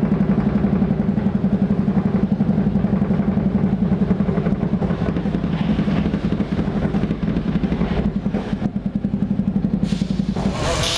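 Water-ride machinery running with a steady low hum and a fast, even rattle. It cuts off near the end and gives way to a hiss.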